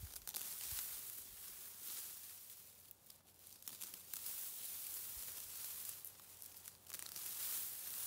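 Dry, ripe wheat stalks rustling and crackling as a bundle is gathered and cut through with a hafted obsidian blade, in bursts with brief lulls.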